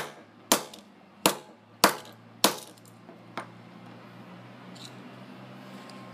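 Hammer blows smashing a Nokia flip phone on a concrete floor: five hard, sharp strikes about two a second, then one lighter knock about a second after the last.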